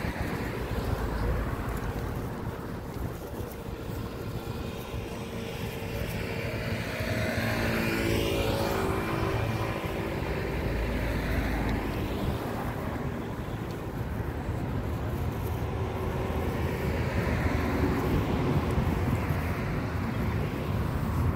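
A car passes by, its engine and tyre noise swelling to a peak about eight seconds in and then fading, over a steady low rumble of wind on the microphone.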